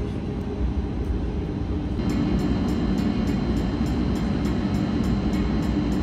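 Steady low rumble of an airliner cabin in flight, with background music whose quick regular beat comes in about two seconds in.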